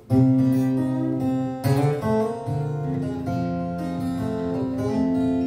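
Steel-string acoustic guitar played solo in a ragtime blues style, bass notes under a picked treble line. It comes in sharply just after the start, with a hard accented chord nearly two seconds in.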